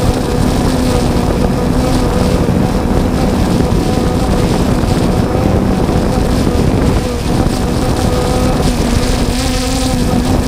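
Harvest machinery running steadily: an engine's rumble with a steady whine over it, and wind on the microphone.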